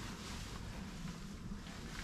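Steady low noise of wind around a small fishing boat.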